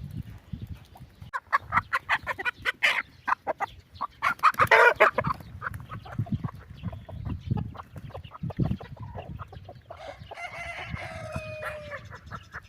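Chickens clucking, with a rooster crowing near the end.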